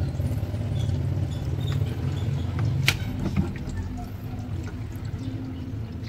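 Water draining out of an American Home automatic washing machine's tub as a steady low rush, with the drain plug pulled open by hand at the drain motor's lever. A single sharp click comes about three seconds in.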